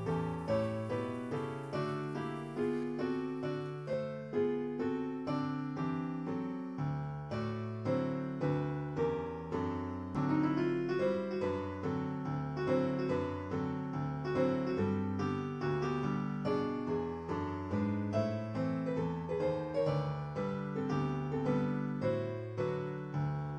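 Piano music: a steady, flowing melody of struck notes, roughly two a second, each ringing and fading.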